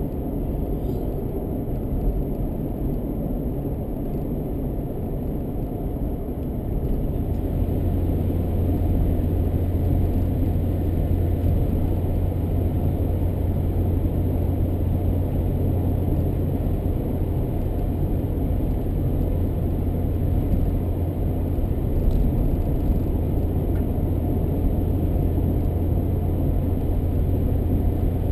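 A car driving along a road: steady low rumble of tyres and engine. About seven seconds in it gets a little louder and a steady low hum joins it.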